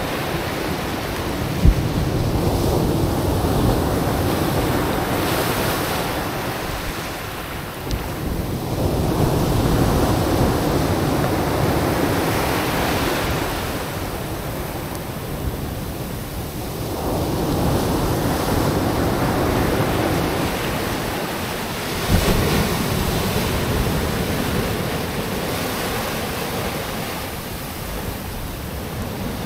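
Ocean surf breaking and washing up a black sand beach among stranded ice chunks, swelling and fading with each wave roughly every eight to ten seconds. Wind noise on the microphone runs underneath, with two brief low thumps, one about two seconds in and one about two-thirds of the way through.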